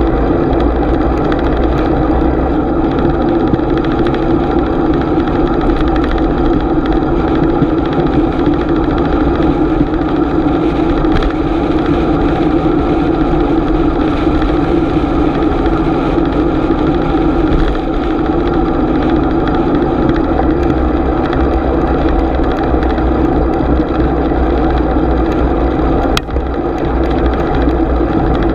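Steady riding noise of a bicycle rolling along the road, a continuous hum and rumble picked up through a GoPro action camera, with a brief dip near the end.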